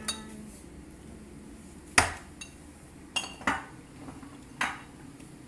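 A kitchen utensil knocking and clinking against a cooking pan and plastic food container while shrimp and corn are served out: about five sharp knocks, the loudest about two seconds in, a few with a short metallic ring.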